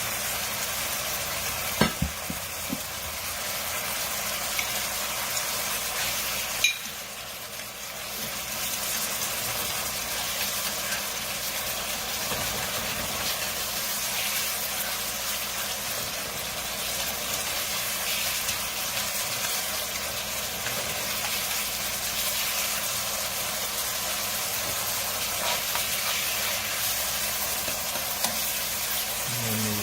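Seasoned meat sauce sizzling in a hot pan, with a few sharp knocks of a cooking utensil against the pan about two seconds in and again near seven seconds, after which the sizzle dips briefly.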